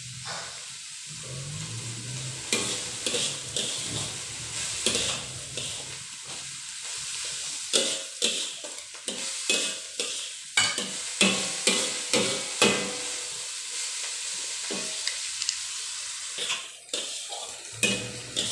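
Shredded vegetables sizzling in a wok over a gas flame while a spatula stirs and tosses them, scraping and knocking against the wok. The scrapes come thick and fast about halfway through.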